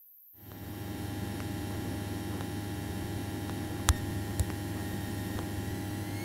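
Cabin noise of a single-engine Piper Archer heard through the headset intercom: a steady low drone as it lines up on the runway, with two sharp clicks about four seconds in. Near the end a whine starts rising in pitch as the throttle goes forward for the takeoff roll.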